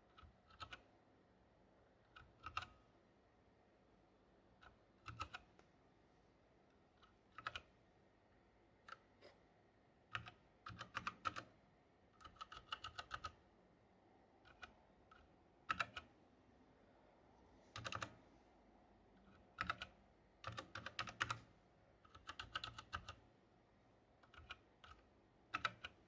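Keys on an Ajazz AK40S mechanical keyboard being pressed in irregular bursts: single clicks and quick runs of several keystrokes, with short pauses between.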